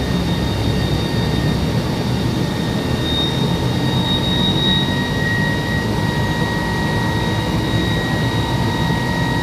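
Fire truck's engine and 1750 GPM fire pump running hard under heavy flow: a steady, dense rumble with a constant high whine, the pump set at 175 psi and still not reaching it.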